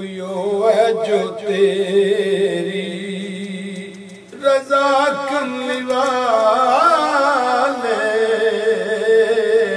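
A man chanting Sufi devotional verse in long held notes with wavering, ornamented turns. A short break about four seconds in, then a new phrase that climbs higher before settling back.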